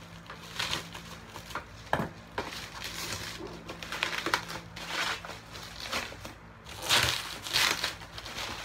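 Plastic packaging and bubble wrap crinkling and rustling as they are handled and pulled open, in irregular crackling bursts, with a sharp snap about two seconds in and the loudest crinkling about seven seconds in.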